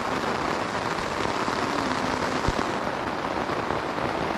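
Heavy rain pouring steadily onto a tent, with one short tap about halfway through.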